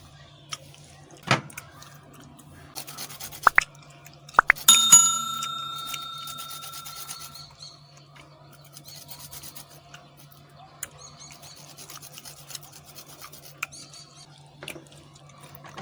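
Kitchen utensils handled in a dish while a bitter kola is prepared: a few light clicks, then a sharp metallic clink about five seconds in that rings on for a couple of seconds, followed by soft scraping and rubbing. A steady low hum runs underneath.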